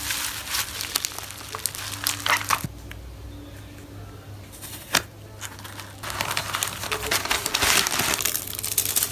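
Plastic bubble wrap crinkling and crackling as a small package is wrapped by hand. The crinkling stops a few seconds in, leaving a quieter stretch broken by one sharp click. Crinkling of a plastic poly mailer bag starts again about six seconds in.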